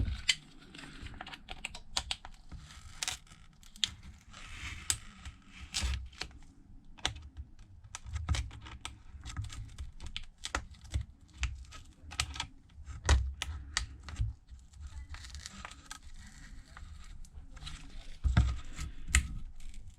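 A thin pry tool working under the edge of a shattered iPad Pro screen, making irregular small clicks, ticks and scraping as the cracked glass and adhesive are worked loose, with occasional dull knocks.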